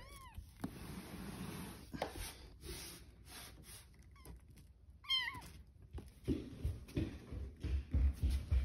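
Very young kittens mewing: one short high cry at the start, then two or three quick mews about five seconds in. From about six seconds on, soft bumps and rustling as they move about in a fabric-lined bin.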